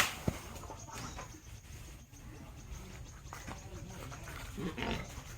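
A sharp knock at the start and another just after, then a pig giving a couple of short pitched calls near the end.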